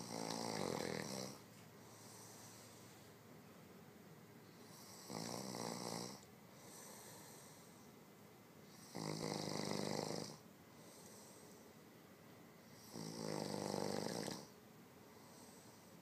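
A man snoring with his mouth wide open: four long snores about four seconds apart, with quieter breathing between them.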